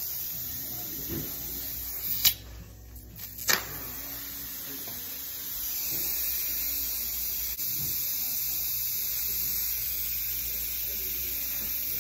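Dental equipment hissing steadily, with two sharp clicks about a second apart a little over two seconds in. The hiss grows louder about six seconds in.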